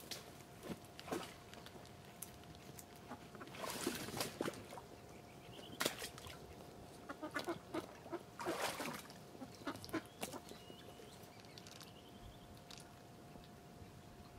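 Duck quacking: two harsh bursts of calls, about four seconds in and again near nine seconds, with scattered sharp clicks between them.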